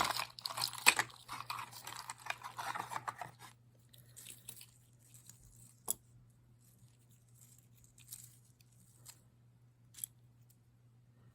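Plastic packaging crinkling and rustling as a piece of jewelry is unwrapped by hand, dense for the first few seconds, then a few light clicks.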